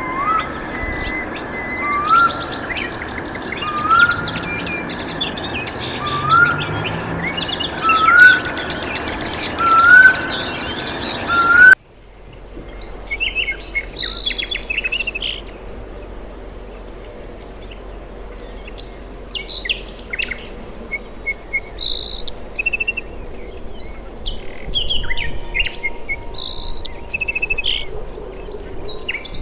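Birds calling and chirping. For the first twelve seconds, a rising whistled note repeats about every second and a half over a busy chorus of chirps. The sound then cuts off suddenly and gives way to sparser, higher chirps.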